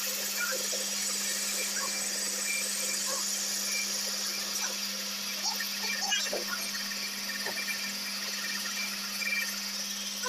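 Metal lathe running, turning a steel motorcycle front fork tube against a cutting tool. A steady motor hum and hiss carry on throughout, with scattered short squeaks.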